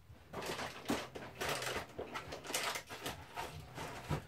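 Rustling and knocking of someone rummaging through boxes: a string of irregular short scrapes and clatters.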